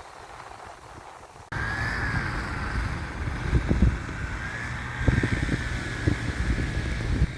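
Wind buffeting the microphone in gusts over a steady motor whine that wavers slightly in pitch, from a motorboat out on the water; it starts abruptly about a second and a half in.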